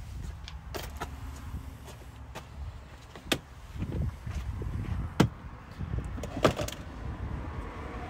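Plastic interior dash trim being handled and pried off, giving scattered sharp clicks and knocks, the loudest about five and six and a half seconds in, over a low steady rumble.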